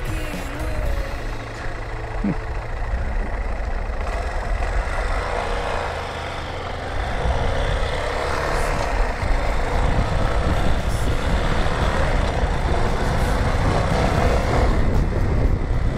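Dual-sport motorcycle engine running under way, with wind rush on the microphone. About seven seconds in, the engine note gets louder and rises slightly as the bike picks up speed.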